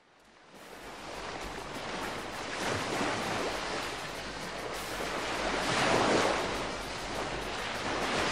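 Ocean surf: waves breaking and washing up on a sandy beach. It fades in about half a second in and swells twice, around three and six seconds in.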